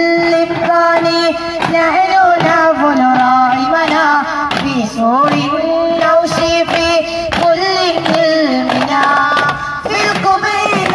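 Duff muttu: a voice sings a wavering devotional melody with long held notes, over repeated strikes of daf frame drums.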